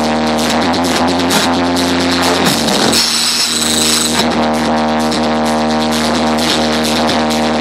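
Electronic music soundtrack with a fast steady beat over a held, droning chord. About three seconds in, the chord drops out for a moment under a rushing sweep, then the music comes back.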